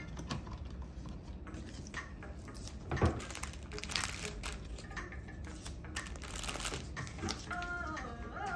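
Clear plastic packaging bags crinkling and rustling as scrunchies are handled and pressed into them, with scattered light taps and a thump about three seconds in.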